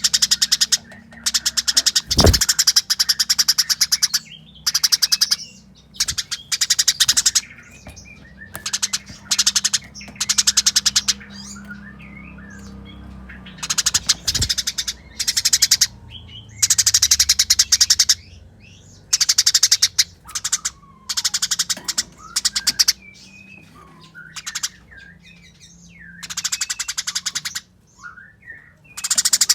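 Eurasian tree sparrows giving their fast, harsh fighting chatter: dense rattling bursts of about one to two seconds, repeated over and over with short breaks between them.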